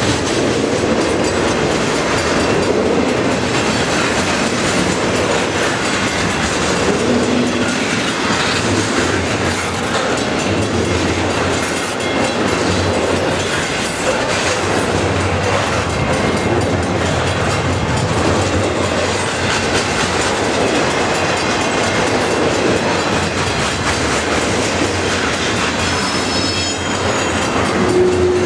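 Double-stack intermodal freight cars rolling past close by: a steady, loud rumble and rattle of steel wheels on the rails.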